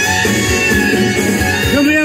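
Rock-and-roll music played on an amplified acoustic guitar, with a singing voice coming in near the end.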